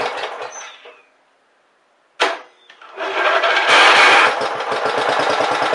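Freshly rebuilt Briggs & Stratton Power Built 12.5 HP single-cylinder flathead engine running on its first start after the rebuild. It dies away and cuts out about a second in, then after a sharp start at about two seconds it catches again a second later and settles into a steady, evenly pulsing run.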